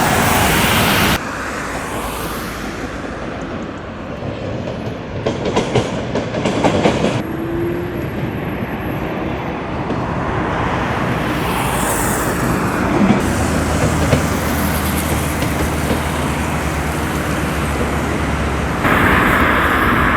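Train running on the line, with a quick run of clacks from the wheels over rail joints a few seconds in. The sound changes abruptly several times.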